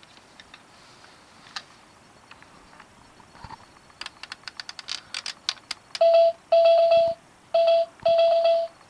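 Korasho character alarm clock beeping: two pairs of loud, steady electronic beeps in the second half, after a quick run of sharp plastic clicks.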